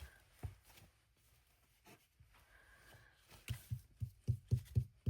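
Faint handling on a craft table, then from about three and a half seconds in a quick run of soft low taps, about four a second.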